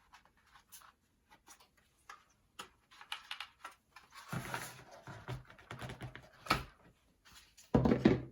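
Hand handling noise from small plastic parts: scattered light clicks at first, then a longer rustle from about four seconds in, and a louder knock near the end.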